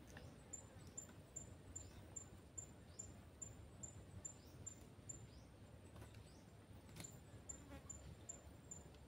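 Faint, high, thin insect chirp repeating evenly about two and a half times a second, with a few faint falling whistles and a single click about seven seconds in.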